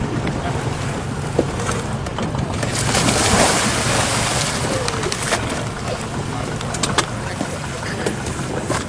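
Long-tail boat's stern-mounted engine running slow and steady, its propeller churning the water, with a swell of splashing wash about three seconds in and a few sharp knocks.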